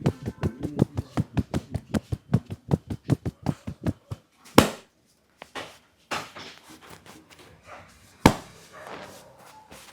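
Barber's hands striking the head in a massage: fast, even chopping or patting at about six to seven strikes a second for some four seconds, then slower, scattered slaps, two of them much louder and sharper.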